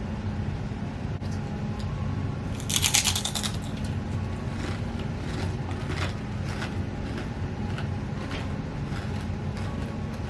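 A crunchy everything-bagel-seasoned chip bitten with a loud crunch about three seconds in, then chewed in a run of short, irregular crunches.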